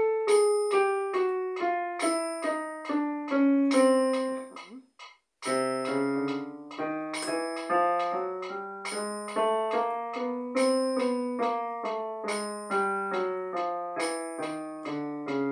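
Digital piano played one note at a time at an even beat of about 140 per minute, in time with a metronome ticking on each beat. A stepwise falling run of single notes, a brief break about five seconds in, then a melody with low bass notes played by the left hand joining underneath.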